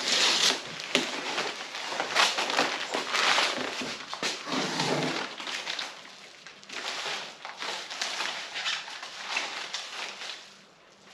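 Packaging rustling and crinkling in irregular bursts as a boxed front lip spoiler is unwrapped. It is busiest in the first half and quieter toward the end.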